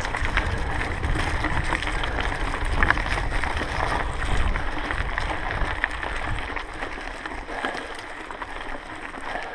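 Mountain bike rolling over a dirt trail strewn with leaves and stones: tyre crunch with scattered clicks and rattles from the bike, and wind rumbling on the microphone that eases after about six seconds.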